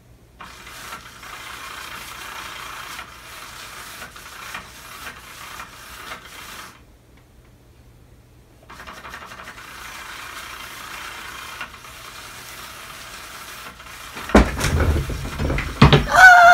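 A cat coming down from the top of a tall cabinet: heavy thumps and knocking about two seconds before the end, followed by a short high cry that wavers in pitch. Before that there is only a faint steady hiss.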